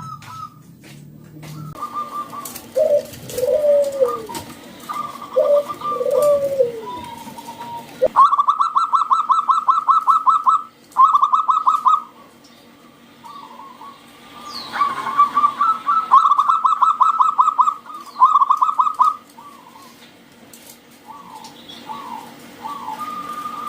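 Zebra doves (perkutut) cooing: bursts of rapid staccato notes at one steady pitch, each lasting a second or more. Lower notes sliding downward come between the bursts.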